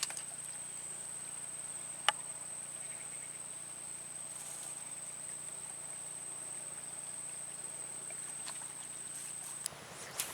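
Outdoor ambience: a steady high-pitched insect-like whine over a low hum, with a few sharp clicks, the loudest about two seconds in. The whine and hum stop together near the end.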